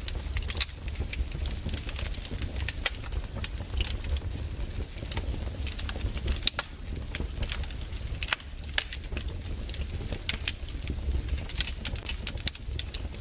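Wood fire burning in a fireplace, the logs crackling with irregular sharp pops over a steady low rumble.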